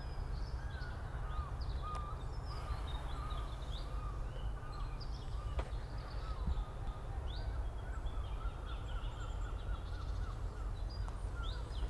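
Outdoor park ambience: small birds chirping in short, repeated calls over a steady low rumble.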